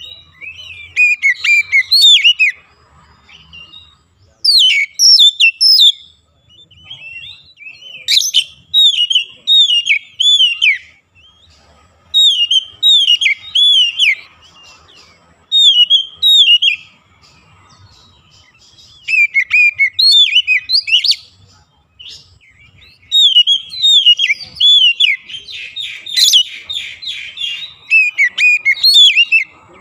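Oriental magpie-robin singing: loud phrases of quickly repeated whistled, slurred notes, each phrase one to two seconds long with short pauses between. A harsh rattling stretch comes near the end.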